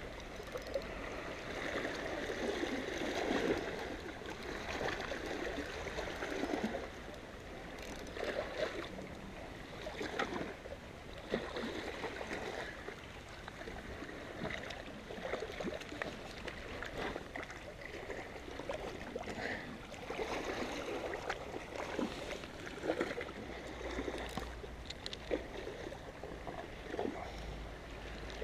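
Small sea waves lapping and sloshing against shoreline rocks in irregular surges, with small splashes and gurgles.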